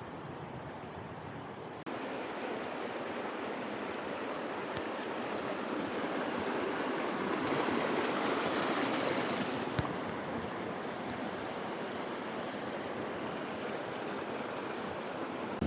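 Rushing water of a mountain creek, a steady hiss. It steps up suddenly about two seconds in and swells louder near the middle.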